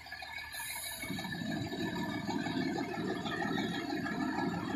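Fire engine idling steadily, a low rumble that picks up again about a second in.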